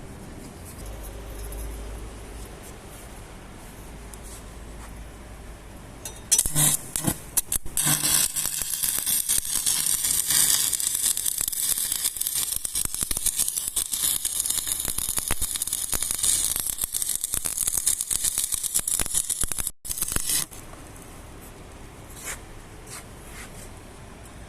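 ESAB LHF 250 welding machine humming, then an electric welding arc struck with a few short crackles about six seconds in and crackling steadily for about fourteen seconds before cutting off, leaving the machine's hum.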